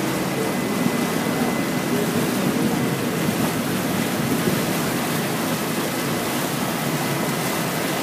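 Steady rush of engine noise and water wash from a river tour boat under way.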